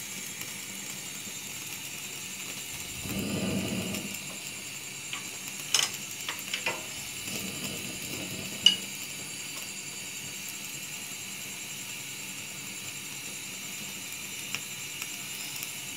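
Quiet kitchen sounds over a steady hiss: a low rumble about three seconds in, then a few sharp clicks and knocks of utensils or cookware, the sharpest about nine seconds in.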